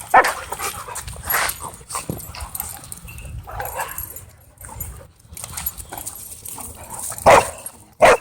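Dogs barking: several short, sharp barks, the two loudest near the end.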